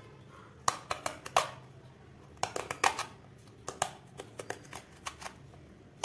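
Small kitchen knife peeling and cutting a pointed gourd held in the hand: clusters of crisp clicks and snaps as the blade bites through the firm skin, coming in four bursts with short pauses between.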